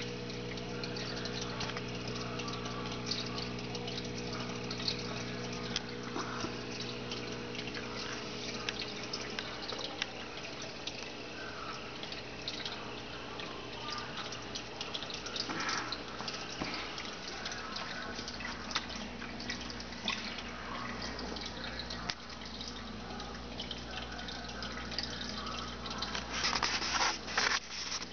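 Aquarium water bubbling and trickling with many small drips and splashes, over a steady electric hum from the tank's equipment. The splashing grows louder near the end.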